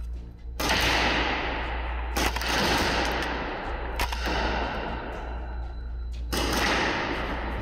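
Paintball markers firing in four bursts, each starting suddenly and ringing out over a second or two in an indoor hall.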